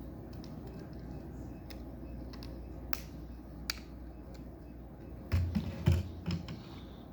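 Lego bricks being handled and pressed together: scattered small plastic clicks and taps, with a few heavier low thuds about five to six and a half seconds in.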